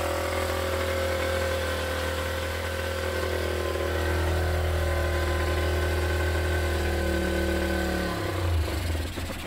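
Honda NS250F's two-stroke V-twin engine running steadily at idle, its note faltering near the end. It is the first run in a long time, after the carburettors were worked on for fuel overflow.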